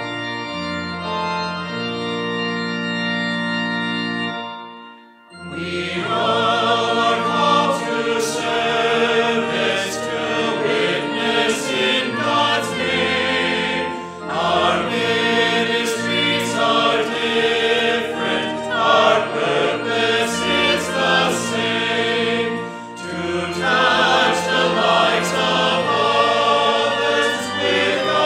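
Organ playing a hymn alone for about five seconds, then voices come in singing the hymn's stanza with the organ accompanying.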